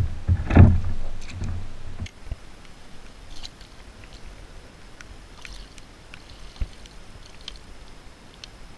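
Knocks and bumps of a landing net being handled aboard a fishing kayak, loudest in the first two seconds, then scattered light clicks and taps as a plaice is netted alongside.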